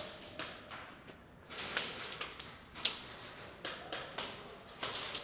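Irregular sharp cracks and taps of an indoor airsoft game, about ten in five seconds, spaced unevenly.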